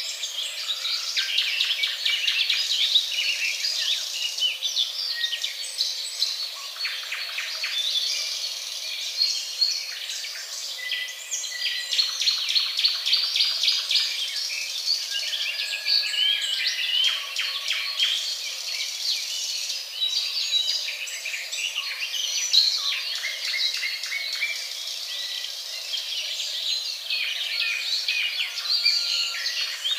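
Dense chorus of forest birds chirping, whistling and trilling, mixed with insect calls.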